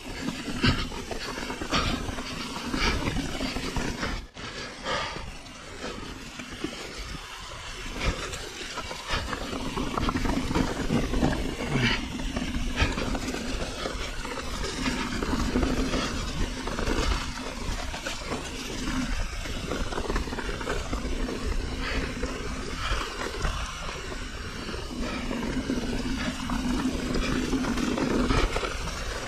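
Mountain bike rolling fast down a rocky, leaf-covered dirt trail: tyres crunching over loose stones, the bike rattling over bumps, with a steady low rumble throughout.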